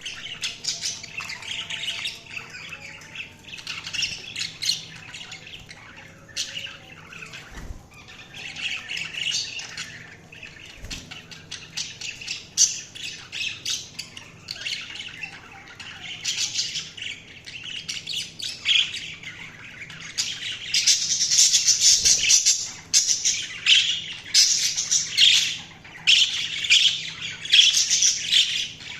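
Budgerigars chirping and chattering continuously, with quick squawks and warbles; the calling grows busier and louder about two-thirds of the way through.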